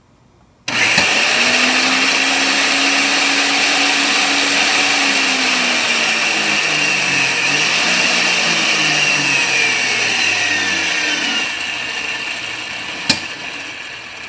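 Power vise motor switching on and running, turning a reusable fitting's nipple into the socket and cloth-covered hydraulic hose: a loud, steady motor noise with a high whine and low tones that shift as the load changes. It eases off near the end, with one sharp click.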